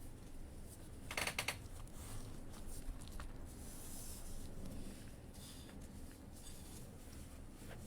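Faint rubbing and handling noises, with a short rattle of quick clicks about a second in.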